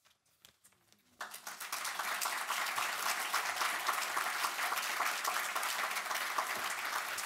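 Audience applauding: after about a second of near silence, many hands clapping start together and go on steadily.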